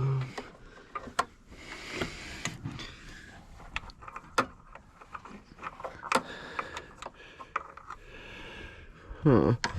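Irregular clinks and knocks of hand tools on metal as exhaust manifold bolts are worked loose in a car's engine bay, with a short grunt near the end.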